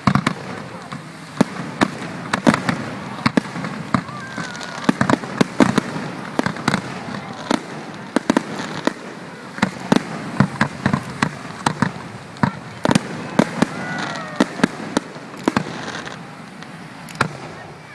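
Fireworks display: an irregular, rapid string of sharp bangs, often several a second, over a constant background din.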